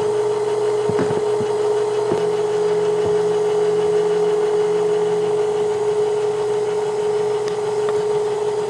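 Electric stand mixer running steadily on low with its flat beater turning in a steel bowl as flour is added: a constant motor hum, with a few light knocks in the first few seconds.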